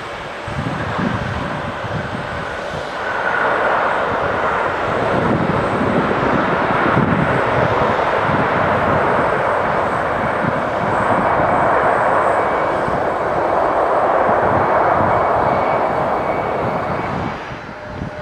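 Airliner passing close by: a loud engine roar that swells about three seconds in, holds, and falls away near the end, with a faint steady whine over it.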